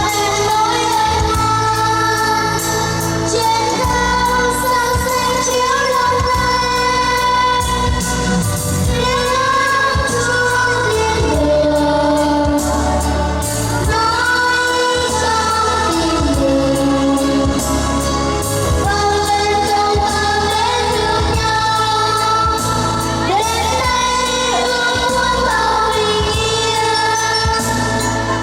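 A choir with a prominent female voice singing a Christmas hymn in held, flowing phrases over a steady instrumental accompaniment with bass.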